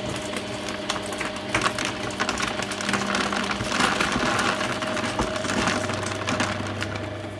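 Twin-shaft shredder running, its motor humming steadily while the cutters chop through a rubber band ball, with a dense crackle of chopping and snapping rubber that is busiest around the middle.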